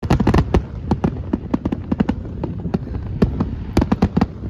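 Fireworks going off in a display: an irregular, rapid string of bangs and pops, about five a second.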